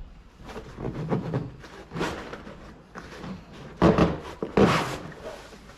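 Canvas Jeep top being pulled along its retaining channel: a run of rubbing and scraping swishes, the two loudest close together about four seconds in.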